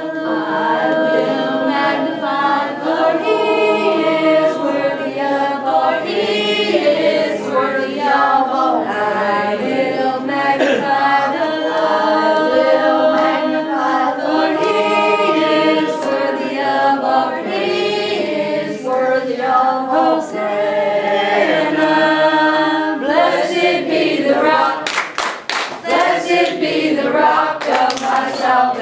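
A small group of children and women singing a worship song together, with a few sharp clicks near the end.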